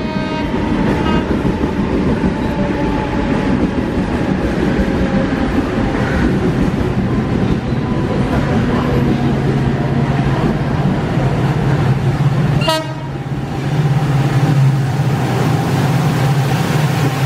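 Indian Railways WDP-4D diesel-electric locomotive, with its EMD 16-cylinder two-stroke engine, hauling an express train in along a station platform: its horn sounds at the start, then the engine's drone grows louder as it draws close, over wheels clattering on the track. About 13 s in the locomotive gives a short horn blast, used to shoo dogs off the track.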